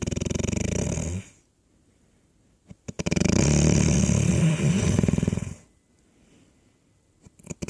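Snoring in long, fluttering breaths about three and a half seconds apart. One snore fades out about a second in, a full one runs from about three seconds to five and a half, and the next starts just at the end.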